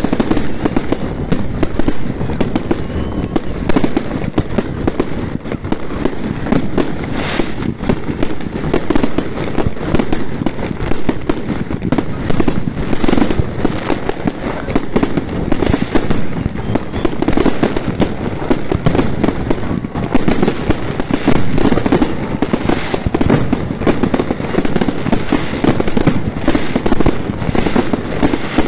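An aerial fireworks barrage: bursts go off in rapid, unbroken succession, many a second, making a continuous loud crackle and bang.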